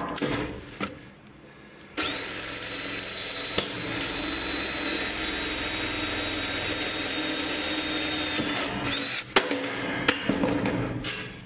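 A cordless drill with a step drill bit runs steadily for about seven seconds, boring through sheet metal with a thin high whine, then stops. A few sharp knocks follow as the bit is lifted out of the hole.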